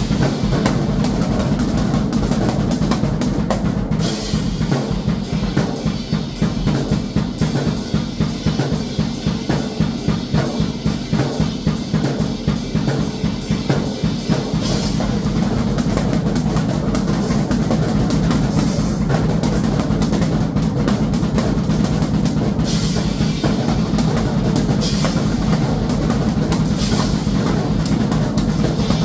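Drum kit played at a fast, busy pace, with dense even strokes on bass drum and snare.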